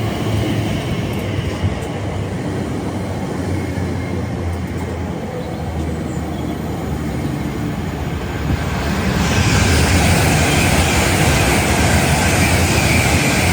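Train running through the station: a steady low rumble, then a louder rushing sound from about nine seconds in as a train comes through at speed.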